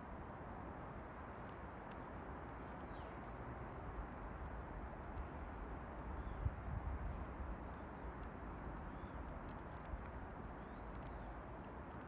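Steady outdoor background noise with faint, distant bird chirps now and then, and a single low thump about six and a half seconds in.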